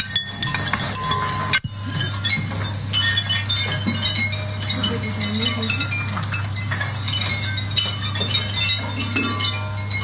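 The Pigstrument, a frame of hanging metal chimes that pigs play, clinking and ringing irregularly as the pigs nudge it, over a steady low hum. Pig grunts come now and then.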